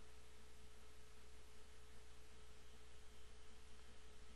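Faint steady electrical hum with a thin steady tone above it: the recording's background noise, with no other sound.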